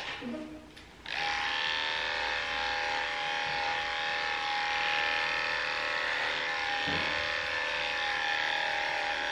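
Cordless electric dog clippers running steadily while shaving a Jack Russell terrier's coat, a constant motor hum that starts up about a second in after a brief drop.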